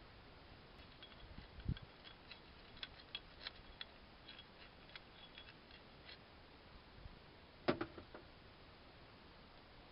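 Faint, scattered small clicks and light metallic ticks from vise parts being handled during assembly, with a low knock early on and one louder clack about three-quarters of the way through.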